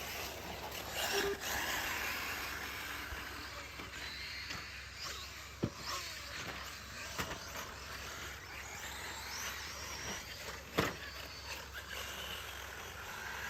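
Electric RC short course trucks racing on a dirt track: faint rising and falling motor whines over a steady haze, with a few sharp knocks.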